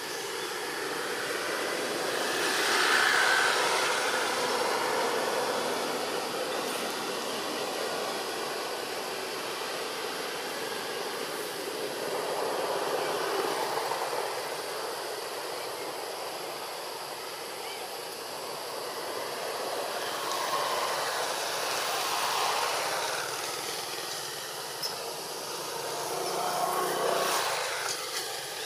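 Traffic noise from passing vehicles, swelling and fading about four times as each goes by.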